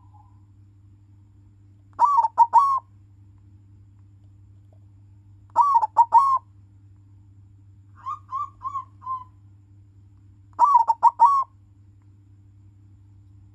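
Silver-coloured zebra dove (perkutut) cooing: four short phrases of three or four quick notes, about three seconds apart, the third phrase softer than the others.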